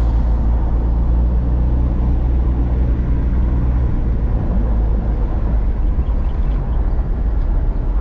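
Car driving on a paved road, heard from inside the cabin: a steady deep rumble of engine and tyres.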